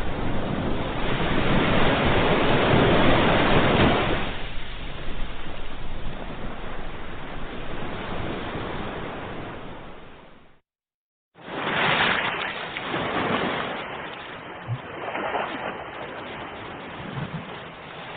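Ocean waves breaking and washing in: a large swell builds about a second in and slowly fades away. Just past halfway the sound drops out abruptly for under a second, then the surf resumes with a fresh wave surging in and smaller ones after it.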